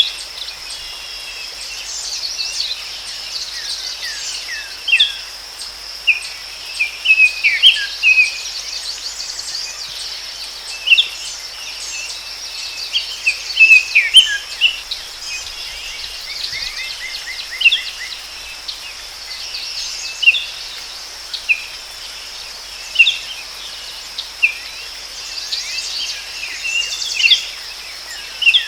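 Forest ambience: several birds calling with short chirps and quick trills over a steady, high-pitched insect drone.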